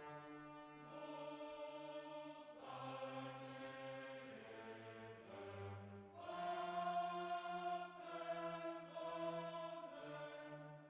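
Quiet background music of slow, sustained chords that change every second or two.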